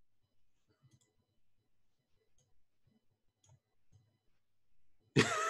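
Faint, scattered computer-mouse clicks at a desk microphone, then near the end a short, loud burst of laughter.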